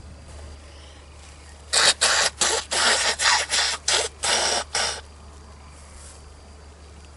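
A person blowing their nose hard into a tissue: a quick run of about nine short, hissy blasts over some three seconds, starting a little under two seconds in.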